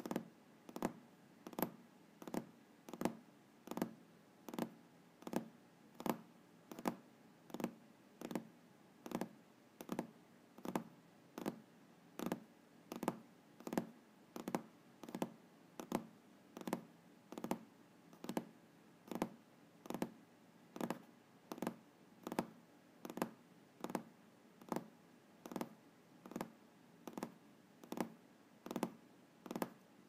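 Fingers tapping on a desk top in a steady, even rhythm, about three dull taps every two seconds.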